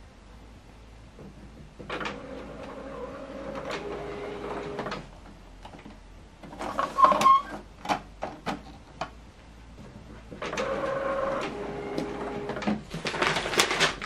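HP OfficeJet Pro 8135e inkjet printer running its paper check after paper has been loaded. Its internal motors whir in two runs, with a string of sharp clicks and clacks from the mechanism between them and near the end.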